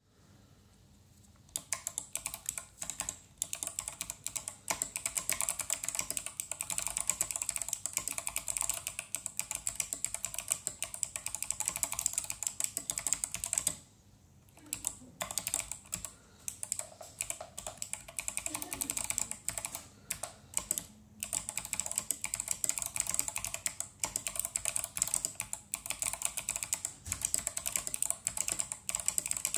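Fast continuous typing on a mechanical keyboard with clicky Kailh Box Navy switches, an aluminium plate and SA profile keycaps. The keystrokes click and clack in rapid runs, starting about a second and a half in, with a brief pause a little before the middle.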